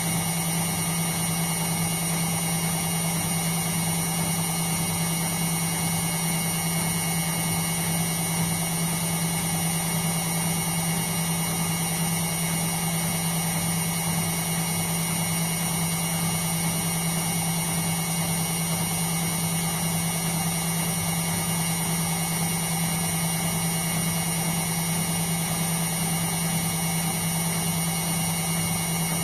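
Indesit washing machine running on its 60-degree cotton programme: a steady, unchanging motor hum with a low tone and a higher whine above it.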